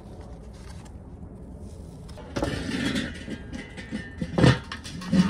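Enamelled steel lid of a Weber charcoal kettle grill set on the bowl and turned: a scraping, rattling stretch about halfway through, then several sharp metal knocks and clanks as it seats and the top vent is positioned.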